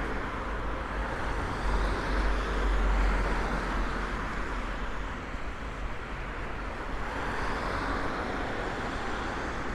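Road traffic noise on a city street, a steady rumble of passing vehicles that swells about two to three seconds in.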